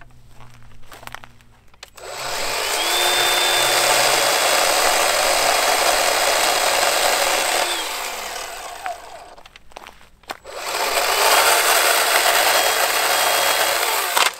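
Litheli 40V cordless electric chainsaw cutting into a small tree trunk in two runs. About two seconds in, the motor whines up to speed and cuts steadily for about six seconds, then winds down. It starts again a couple of seconds later and cuts for about four seconds, stopping near the end.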